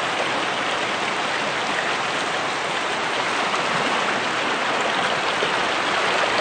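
Floodwater flowing steadily over a road, a constant rushing of stream water.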